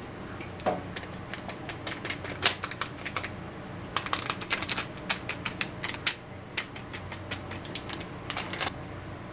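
A small plastic packet of dried bonito flakes (katsuobushi) crinkling as it is handled and shaken out, a quick irregular run of sharp crackles in three spells.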